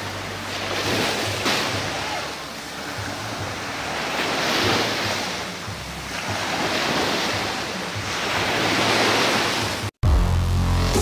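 Sea waves washing onto a sandy beach, the surf swelling and fading every two or three seconds, with wind on the microphone. About ten seconds in it cuts off and loud electronic intro music begins.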